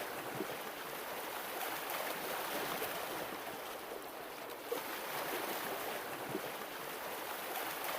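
Ocean water washing and lapping in a steady, continuous wash, with a few small splashes.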